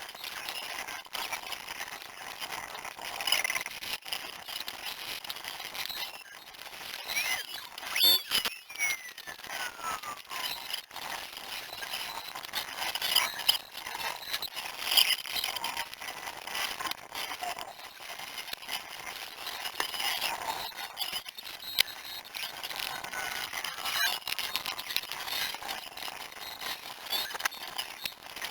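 Workshop sound from an engine teardown played back sped up sixty times: a dense jumble of high-pitched clicks and quick sliding tones, with almost nothing low.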